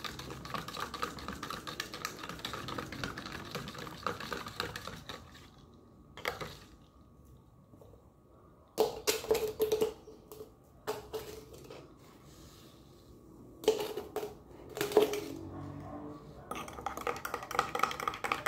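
A spoon stirring chocolate powder into milk, clinking rapidly against the side of a plastic cup. In the middle the stirring stops for a few separate knocks and clinks, and near the end the rapid stirring starts again, now in a glass.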